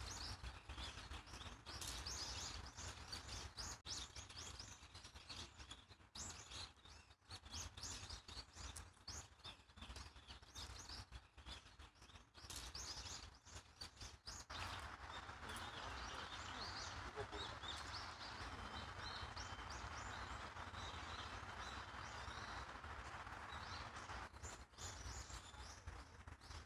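Many small birds chirping in quick, short, high calls over a low steady outdoor rumble. About halfway through, a steady rushing noise joins in beneath the chirps.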